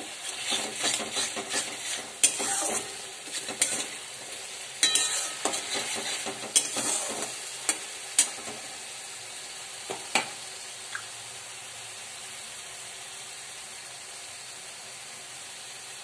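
A spatula stirring and scraping a spice paste as it sizzles in hot oil in a pan, with frequent scrapes and knocks for about ten seconds, then only the steady sizzle. The paste, tomato, green chilli and ginger with turmeric, is being sautéed down.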